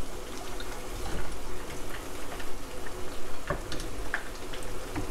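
Chicken frying in a pot of hot oil: a steady sizzle with scattered pops and crackles, and one sharper click about three and a half seconds in.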